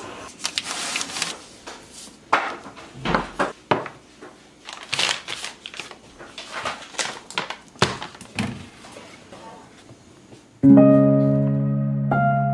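Kitchen items and packages being set down one after another on a countertop: irregular knocks, taps and packaging rustle. About ten seconds in, background music starts suddenly with a held chord, and a second chord joins near the end.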